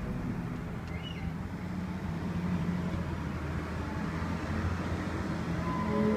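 Nissan Quest's 3.5 L VQ35DE V6 engine running steadily at idle, a low even hum.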